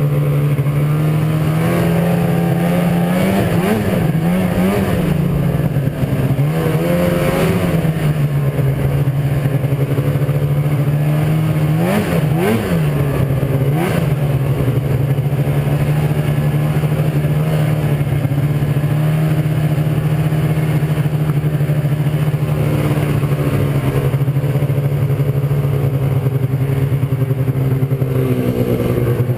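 Arctic Cat snowmobile engine running steadily under way. The pitch rises and dips briefly a few seconds in, and again with short throttle blips around the middle.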